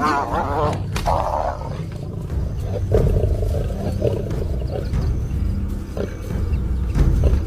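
Lion growling and roaring, deep and rough, loudest about three seconds in and again near the end.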